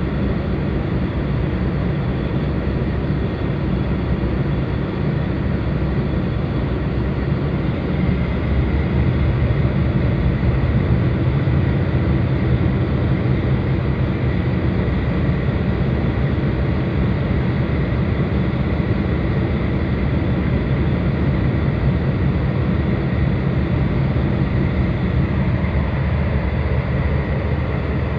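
Tugboat's diesel engines running steadily, heard from inside the wheelhouse, a little louder from about eight seconds in.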